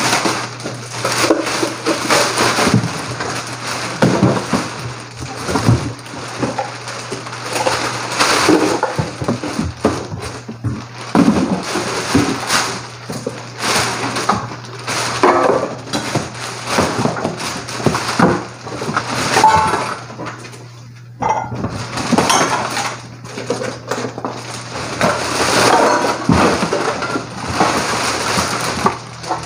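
A large clear plastic bag crinkling and rustling as used plastic bottles, cups and pieces of cardboard are stuffed into it, with light knocks and clatter of the plastic items against one another.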